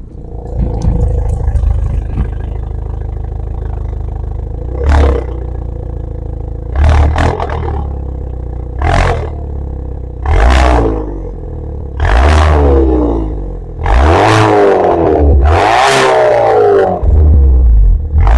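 Hyundai Veloster N's turbocharged four-cylinder idling through a Borla cat-back exhaust, heard right at the tailpipe. It is revved repeatedly: a short blip about five seconds in, then a string of revs that grow longer and louder toward the end.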